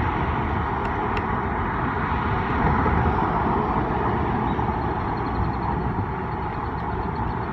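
Wind rushing and buffeting over the microphone of a moving bicycle, with road and traffic noise underneath.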